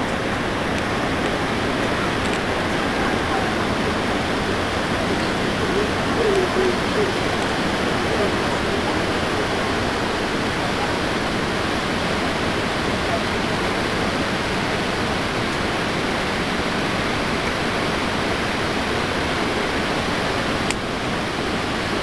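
Niagara Falls: an even, steady rush of falling water.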